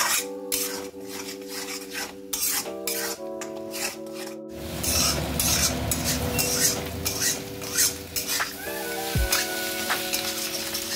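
Beaten eggs sizzling and frying in a Chinese wok over a high gas flame. A spatula repeatedly scrapes and knocks against the pan as the eggs are stirred and scrambled.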